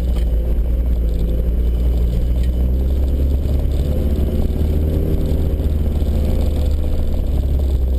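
Land Rover Discovery 1's 300Tdi 2.5-litre four-cylinder turbo-diesel running as the vehicle drives along a dirt track, heard from inside the cab as a low, steady drone, its note shifting slightly around the middle.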